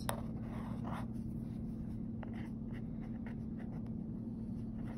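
Felt-tip pen writing on a graph-paper notebook page: faint, irregular scratching strokes of the tip on paper, over a steady low hum.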